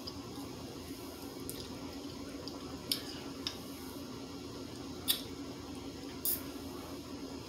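A protein shake being sipped through a straw: a handful of short, sharp sucking sounds spaced a second or so apart, the loudest about five and six seconds in, over a steady low hum.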